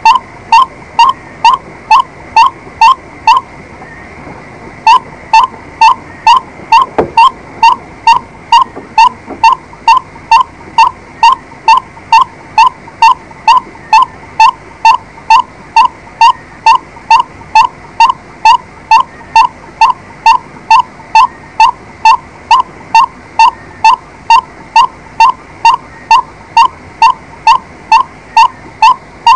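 White-breasted waterhen calling a short, harsh note over and over, about two a second, with a brief break about four seconds in.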